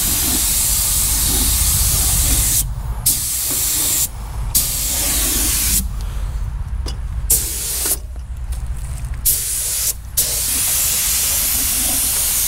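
Gravity-feed paint spray gun hissing as compressed air atomises paint, cutting off briefly several times as the trigger is let go between passes.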